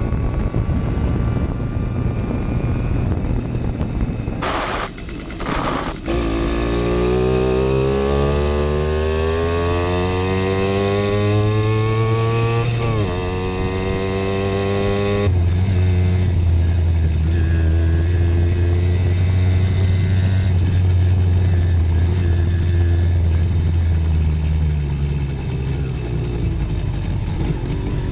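Simson S51 moped's two-stroke single-cylinder engine under power. The pitch climbs steadily for several seconds, dips at a gear change and climbs again, then after a sudden cut holds at a steady pitch for about ten seconds.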